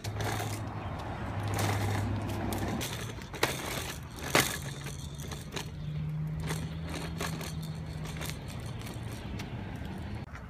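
Hard plastic wheels of a toddler's push walker rolling and rattling over a concrete sidewalk, with scattered clicks and two sharper knocks about three and a half and four and a half seconds in. A low steady hum runs underneath and rises a little in pitch about halfway through.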